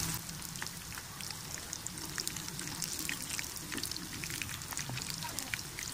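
Besan-battered spinach-and-paneer pakoras deep-frying in hot oil in a kadhai, the oil sizzling with a steady crackle of many small pops as a spoon turns them over.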